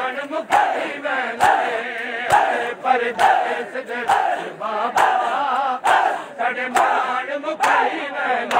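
A large crowd of men chanting a Punjabi noha (mourning lament) together, with their unison chest-beating (matam) striking in a steady rhythm, about one slap a second.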